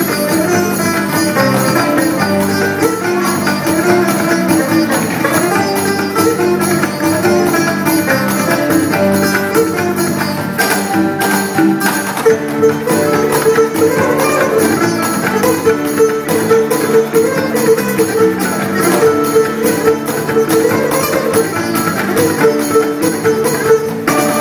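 Live instrumental music from a small fusion ensemble of sitar, acoustic guitar, electric bass, cajon and a double-headed barrel hand drum, over a steady percussion beat. A long held note comes in about halfway through.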